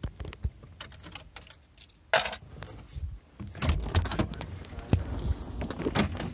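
Clicks, knocks and rustling of a person getting out of a car: door, seat and clothing handling noise. The sharpest knock comes about two seconds in, followed by a denser run of rustles and thumps.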